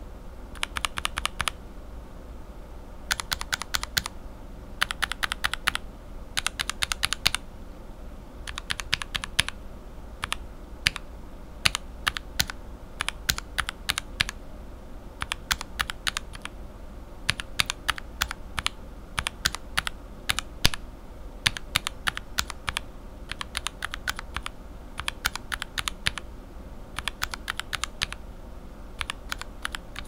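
Lubed linear mechanical keyboard switches (Cherry retooled bottom housings, Revo White stems and springs, Tribosys 3204 lube, each under a different top housing) pressed with one finger in quick runs of several keystrokes, with short pauses between runs. Each press gives a soft clack as the stem bottoms out and returns.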